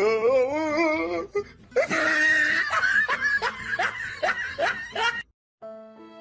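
A wavering, wobbling voice-like tone for about a second, then a person laughing in quick repeated bursts for about three seconds that stops suddenly. Soft violin music begins near the end.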